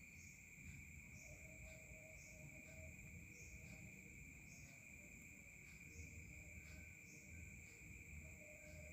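Near silence: a faint background with a steady high-pitched hum and soft chirps repeating about once a second.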